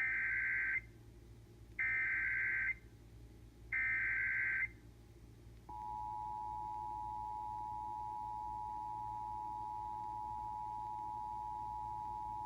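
Emergency Alert System header: three short bursts of SAME digital data tones, each under a second. About six seconds in, the steady two-tone EAS attention signal starts and holds, announcing a severe thunderstorm warning.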